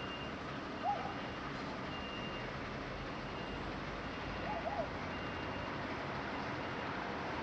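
Steady rushing outdoor background noise, with a faint high beep recurring about once a second and short chirps about a second in and again past the middle.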